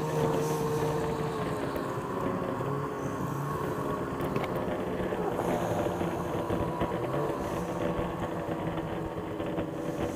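Ski-Doo snowmobile engine running steadily at low speed while the sled moves along at an easy pace.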